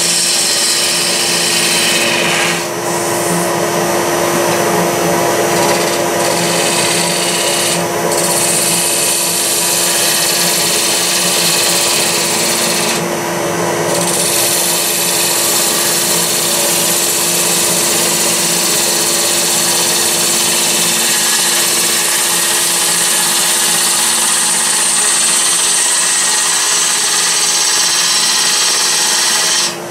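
Wood lathe running with a steady hum while a hand-held turning tool cuts a spinning walnut lamp base, a continuous hiss of shavings being peeled from the wood. The cutting hiss drops out briefly three times as the tool comes off the wood.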